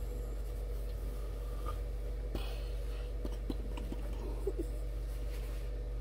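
Soft rustling of bedding and paper under a moving hand, with small scattered clicks over a steady low hum. Two brief faint squeaks come about four and a half seconds in.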